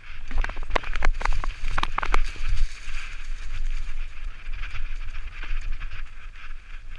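Propain Tyee enduro mountain bike descending a rocky, leaf-strewn trail: a quick run of sharp clatters and knocks as it rattles over rocks in the first couple of seconds, then a steady rush of tyres on dry leaves and dirt. Wind rumble on the helmet camera's microphone runs underneath.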